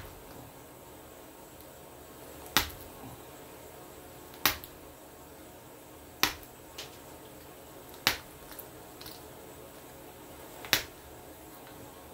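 Stone blade being pressure-flaked with a copper-tipped flaker: five sharp clicks about two seconds apart, each one a flake snapping off the edge.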